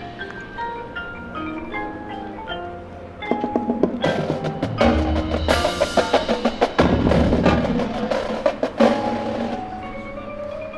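Marching band's front ensemble playing mallet percussion: marimba and xylophone notes with glockenspiel, swelling about three seconds in into a louder passage of rapid strikes over low drum hits, which eases off near the end.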